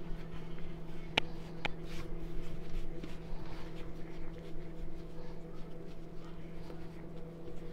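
Hands rolling a log of dough on a floured granite countertop: soft rubbing and handling noise, with two sharp clicks a little over a second in, over a steady electrical hum.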